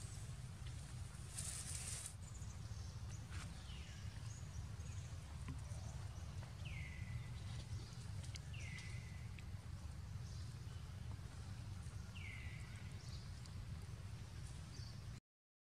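Outdoor ambience: a steady low rumble with three short, high chirps, each dropping in pitch and then levelling off, and a brief rustle near the start. The sound cuts out for a moment at the very end.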